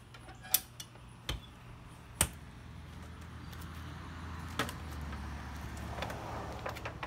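Sharp metal clacks as the steel door latches of an insulated gravity smoker are clamped shut: a few single clicks, the loudest about half a second and two seconds in. A low rumble swells in the background from about three seconds in.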